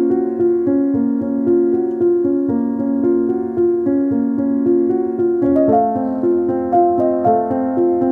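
Instrumental background music: a gentle keyboard melody of evenly paced notes, moving to a higher phrase about five and a half seconds in.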